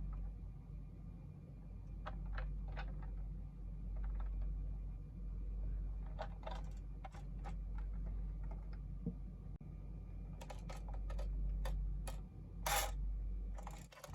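Scattered light clicks and taps from handling a small diecast bus model and its packaging, with a louder crackle near the end, over a steady low hum.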